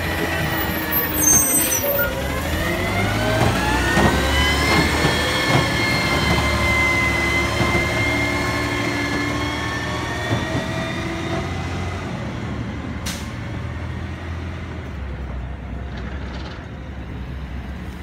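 Garbage truck's engine and drivetrain whine as it pulls away. The pitch dips and climbs again about two seconds in, as at a gear shift, then holds and slowly fades as the truck drives off. There is a brief hiss about two-thirds of the way through.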